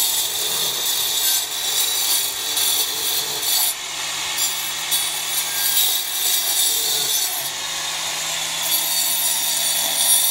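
Angle grinder with a stone-cutting disc cutting a groove along the top of a hollow masonry block wall: a steady, high-pitched grinding of the disc in the block that dips briefly about four seconds in.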